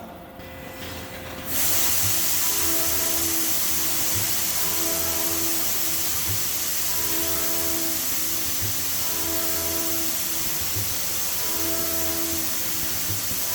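Hard milling machine at work on a bearing inner race: a steady loud hiss sets in abruptly about a second and a half in, and a short tone with a low knock recurs about every two seconds.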